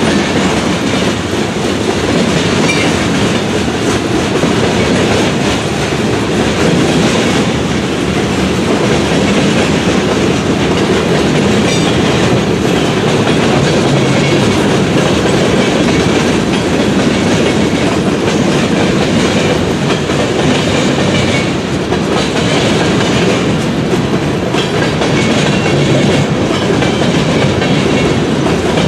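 Freight train cars rolling past at close range, steel wheels clacking over the rail joints in a steady, continuous run.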